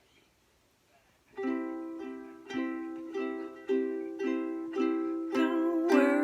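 Ukulele strumming chords in a steady rhythm, starting about a second in after a near-silent start. A voice begins singing near the end.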